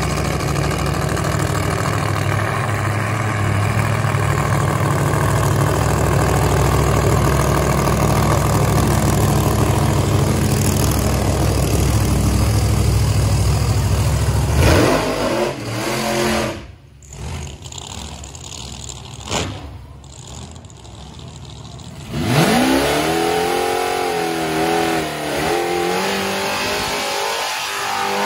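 Race-car engines idling loud and steady with a heavy low rumble, fading about halfway through. Near the end the Dodge Challenger Redeye's supercharged Hemi V8 revs up sharply and holds high, wavering revs as its rear tyre spins in a smoky burnout.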